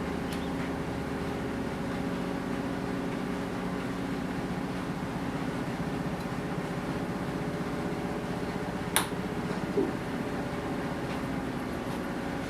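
A steady machine hum, with one sharp click about nine seconds in and a softer knock just after.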